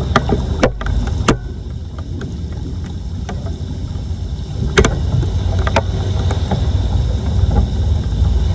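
Steady low rush of floodwater around a blocked street drain, with a few sharp knocks: three in the first second and a half and two more about halfway through.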